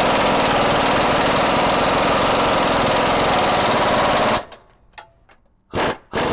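Impact wrench hammering as it snugs up the radius-rod frame bracket bolts. There is one long run of about four seconds, then a short burst and the start of another run near the end.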